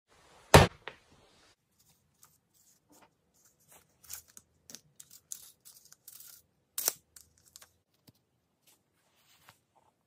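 Handling and unpacking sounds of a plastic tool case and its tools: a sharp snap about half a second in, then scattered clicks and crinkling plastic, with another loud click about two-thirds of the way through.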